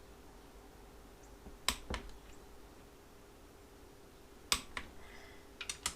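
Click-type torque wrench clicking over as engine bolts reach the set torque, heard as three short groups of sharp clicks.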